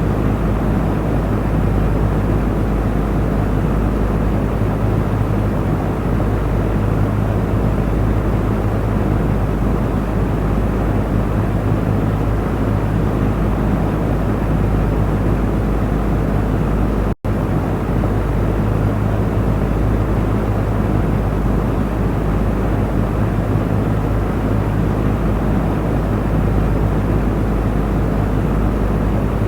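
Electric fan running steadily: a continuous rush of moving air over a low motor hum. It cuts out for an instant about two-thirds of the way through.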